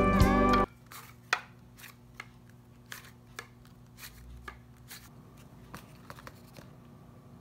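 Slide-guitar background music stops abruptly under a second in. After it come faint, scattered clicks and taps of kitchen handling, such as a spoon against a ceramic bowl of crushed-Oreo filling and things set down on a table.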